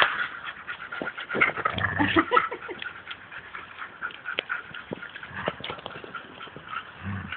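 Two dogs tugging and tussling over a toy: dog play noises with short low sounds and scattered sharp clicks and scuffs, busiest in the first couple of seconds and sparser after.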